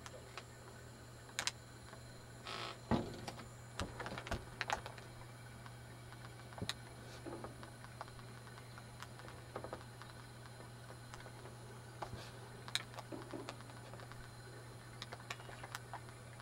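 Handheld camcorder handling noise: scattered clicks and knocks, with a short rustle about two and a half seconds in, over a steady low electrical hum.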